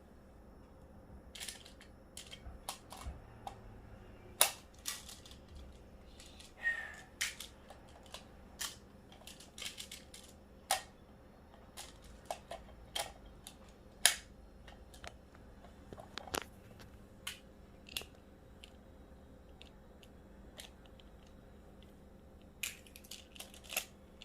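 Plastic magnetic building tiles clicking and snapping against each other as they are handled and joined, in scattered sharp clicks with quiet gaps between; two snaps, about 4 and 14 seconds in, are louder than the rest.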